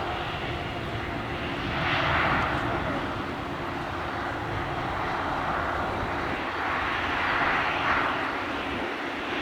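Jet airliner engines running: a steady, rushing noise with a faint steady hum underneath. It swells louder about two seconds in and again near the end.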